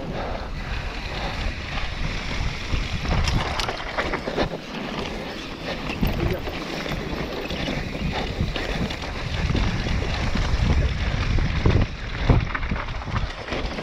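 Wind buffeting the camera microphone during a fast mountain-bike descent, with the bike rattling and knocking over a bumpy dirt trail.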